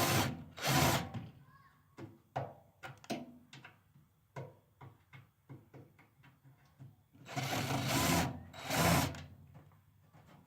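Power drill with a Torx bit running in short bursts, backing out the screws of a microwave's casing. There is a burst at the start and another just under a second in, then a few seconds of small clicks and taps from the bit and screws, then two more bursts between about seven and nine seconds in.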